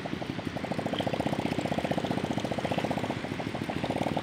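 Motorcycle engine running at low revs close by: a rapid, even putter of firing pulses.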